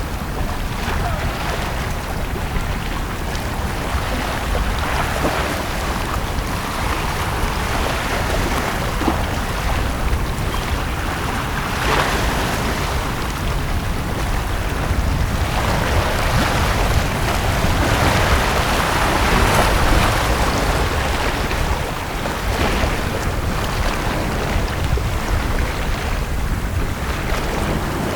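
Sea waves washing onto a beach, a steady surf hiss that swells and fades every few seconds, with a constant low rumble underneath.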